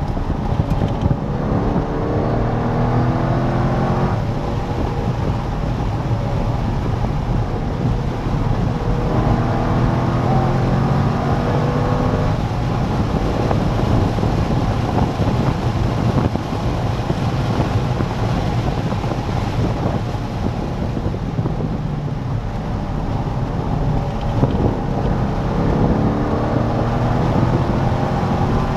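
C5 Corvette Z06's LS6 V8 under hard track driving, climbing in pitch through three strong pulls, about two seconds in, around ten seconds in and near the end, with easing off between them. Wind noise runs under it.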